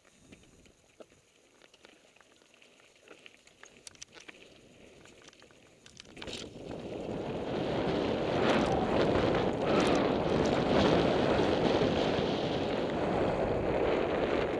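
Mountain bike rolling down a dirt trail, heard from a helmet camera: near-quiet at first with scattered small clicks, then about six seconds in a loud rush of wind on the microphone and tyre noise on dirt builds and stays loud, with occasional knocks from bumps.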